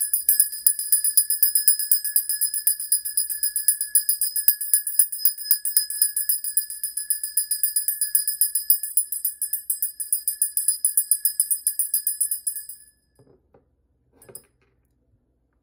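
Small brass hand bell rung rapidly and steadily, its clapper striking several times a second, for about thirteen seconds; the ringing stops suddenly, followed by a light clink as the bell is set down.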